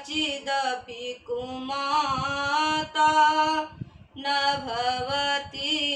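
A woman chanting a Hindu prayer from a prayer book in a sung, melodic recitation: long held notes in phrases, with short breaks about a second in and near four seconds in.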